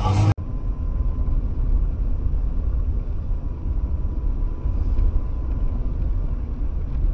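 Steady low rumble of a car driving on a wet road, as heard by a dashboard camera inside the cabin, with a faint steady high tone. It cuts in abruptly just after the start.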